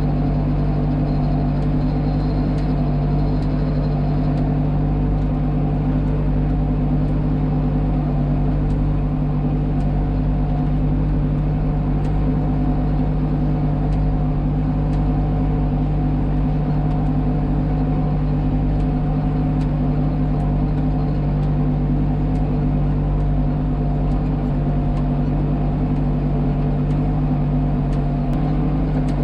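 Tractor engine running steadily under load in third gear, pulling a disc harrow through dry ploughed ground, heard from inside the cab. The pitch and level stay even throughout.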